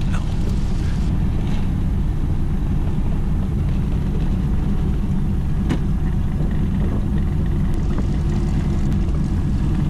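AT-6 Texan's Pratt & Whitney R-1340 Wasp radial engine running steadily at low power on the ground, a continuous low rumble.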